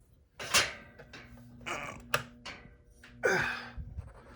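A Tatung ceiling fan's motor hums steadily and audibly from about a second in, under louder rustling and knocking from things being moved about, with a sharp click about two seconds in.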